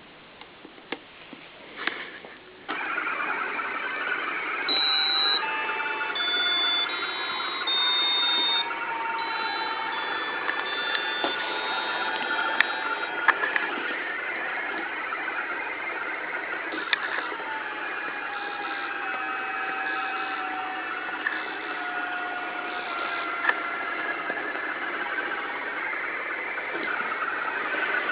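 Roomba robot vacuum's motors starting up with a click a few seconds in and running as it drives, with a short tune of electronic beeps from its speaker soon after it starts. The motor whine then slowly slides in pitch as the robot turns.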